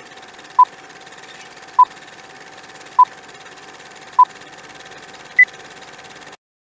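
Countdown beep sound effect: short electronic beeps at one pitch, one about every 1.2 seconds, then a single higher beep near the end marking the end of the countdown. A faint steady hiss and hum lie under the beeps, and the sound cuts off suddenly just after the last beep.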